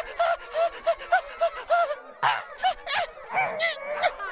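High-pitched cartoon character voices crying out in panic: short, rapid yelps about four a second, then a louder outburst about halfway through and a jumble of overlapping cries.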